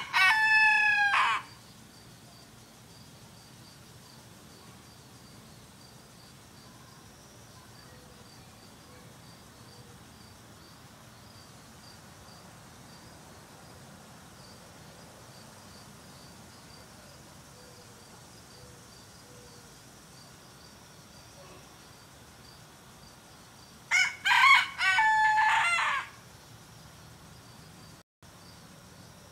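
Rooster crowing twice, a crow of about two seconds at the very start and another about 24 seconds in. Between the crows, faint insect chirping repeats evenly.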